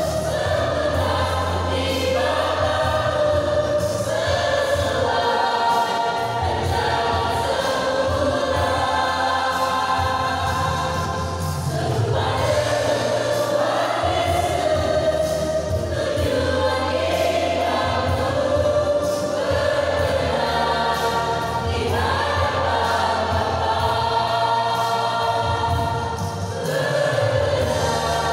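A mixed youth choir singing a slow Christian worship song in several-part harmony, in long held phrases over a sustained low bass accompaniment.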